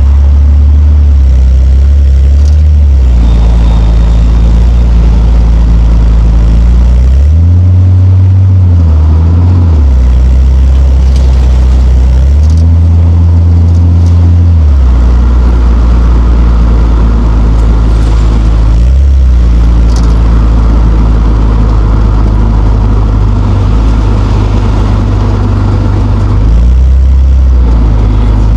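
Nissan Skyline R34's straight-six engine running loud and low while driving, its note climbing and dropping several times with throttle and gear changes.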